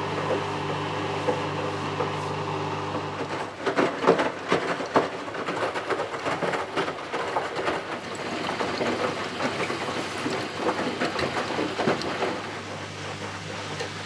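Bosch Serie 6 WAQ283S1GB front-loading washing machine running mid-wash: a steady motor hum, then from about three seconds in the wet laundry tumbles and water sloshes in the drum with irregular thuds, settling back to the hum near the end.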